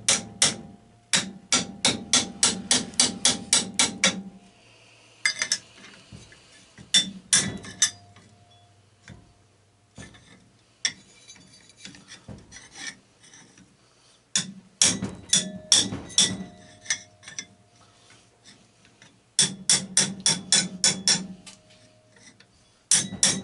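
Runs of quick hammer taps on a steel shovel braced against a rust-seized Honda ATC 200ES engine, about three to four blows a second with a short metallic ring. Between the runs come scraping and scattered clicks as the tool is repositioned. The tapping is meant to jar the water-seized piston loose, and the engine starts to move a little.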